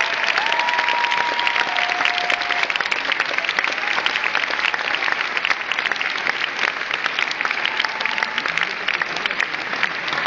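Concert audience applauding and cheering: dense clapping from a large crowd, with a few whistles in the first couple of seconds.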